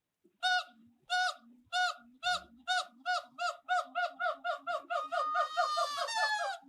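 Orangutan calling: a series of pitched hoots that start about two-thirds of a second apart and speed up to several a second, running into a faster, more continuous stretch near the end, with fainter low sounds between the hoots.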